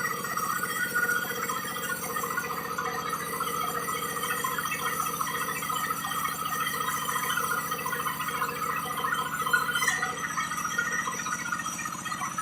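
Diesel-engine-driven sawmill saw running steadily while cutting timber, with the engine's even drone under a continuous grainy rasp of the blade in the wood. A single sharp click sounds near the end.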